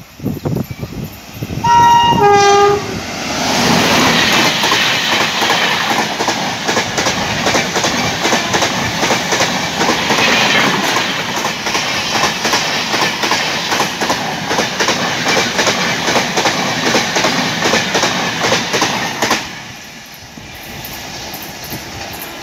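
An Indian Railways electric locomotive sounds a short two-note horn blast about two seconds in. Then its Humsafar express passes close at speed, and the coaches' wheels rumble and clatter over the rail joints in a loud continuous rush. The rush drops off suddenly near the end as the last coach goes by, leaving a fainter rumble of the receding train.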